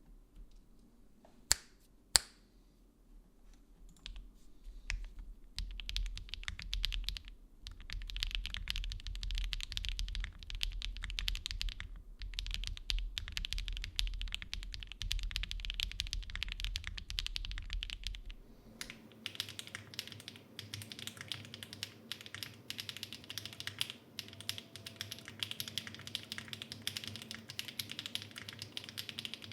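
Typing on an Aero75 mechanical keyboard with stock HMX Swift linear switches, an aluminium plate, foam-filled case and Domikey keycaps: two sharp clacks about two seconds in, then a continuous fast stream of keystrokes. A low hum underneath drops out about two-thirds of the way through.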